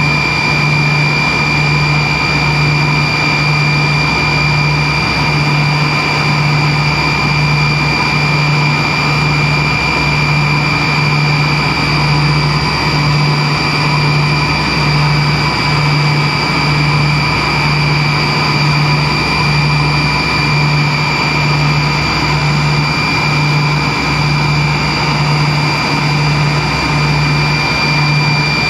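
Cabin noise of a Tupolev Tu-134B-3 airliner in flight: the steady roar and whine of its two rear-mounted Soloviev D-30 turbofan engines, with a low hum that throbs about once a second.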